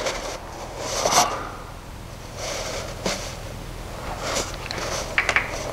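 Short rasping and rubbing noises as the crankshaft of a 1.6 L AKL four-cylinder engine is turned over by hand at the pulley, with a few sharp clicks near the end.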